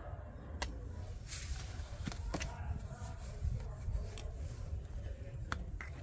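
A few short, sharp plastic clicks and knocks as a washing-machine door and its handle are handled, over a steady low rumble.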